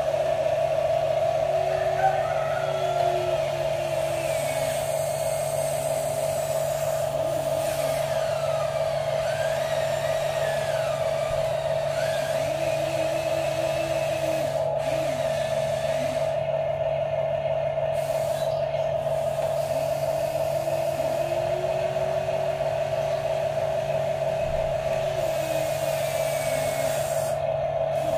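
Electric motors of toy radio-controlled construction vehicles whining. One steady whine runs underneath, while other motor tones rise and fall as the machines speed up, slow down and stop.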